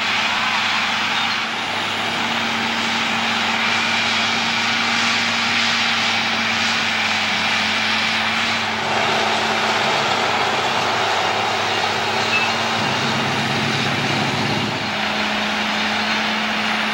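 Vehicle driving, a steady mix of engine and road noise with a constant engine hum; the hum drops away for about two seconds near the thirteen-second mark and then returns.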